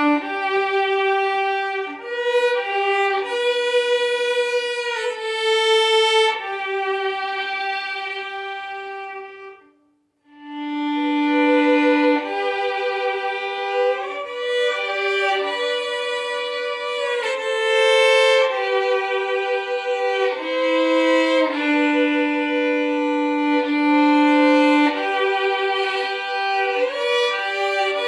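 Solo violin playing a hymn melody in held notes, one note at a time. The playing stops briefly about ten seconds in, then the tune picks up again.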